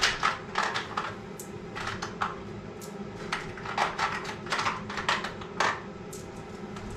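Irregular light clicks and clinks of small metal parts being picked out and handled, like rummaging for small brass fittings, over a faint steady hum.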